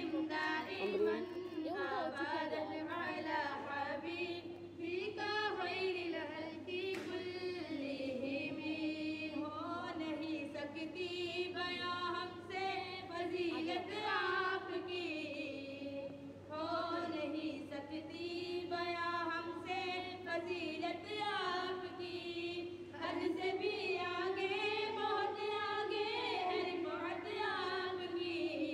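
A single high voice singing a slow, wavering devotional melody without instruments, held in long drawn-out lines with short pauses for breath.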